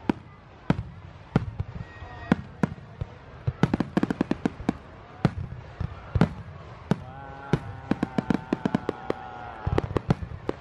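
Fireworks display: aerial shells bursting in an irregular string of sharp bangs and crackles, bunched close together at times.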